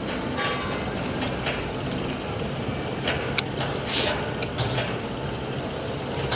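MIG welding arc crackling steadily, with a brief hiss about four seconds in.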